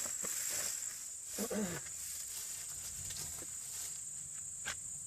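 A steady, high-pitched insect drone, with a short pitched animal-like call about a second and a half in and a sharp click near the end.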